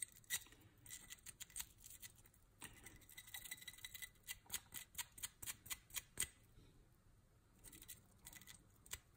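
Stiff brush scrubbing the chamber of a Glock pistol in short, faint strokes, about three a second, to work off a stubborn powder stain. The strokes stop about six seconds in, with a few more near the end.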